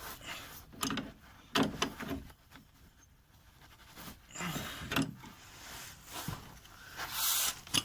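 Several separate clanks and scrapes of tools and metal parts being handled during repair work on a car's front suspension.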